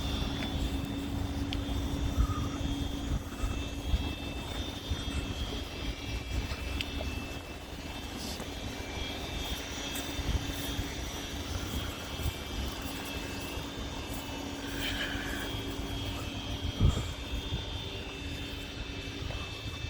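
Freight train of Eas open wagons behind a Bombardier TRAXX electric locomotive rolling past: a steady rumble on the track with a few thin held tones and occasional sharp clicks.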